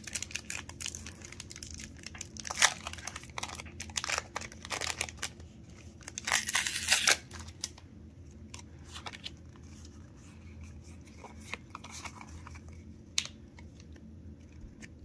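Foil Pokémon booster pack wrapper being torn open and crinkled: a run of short sharp rips, with a longer tearing rasp about six seconds in. After that come quieter, scattered rustles as the cards are slid out and handled.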